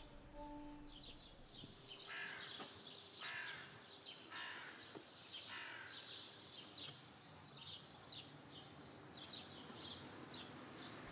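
Faint outdoor birdsong: small birds chirping throughout, with four harsh caws about a second apart a couple of seconds in.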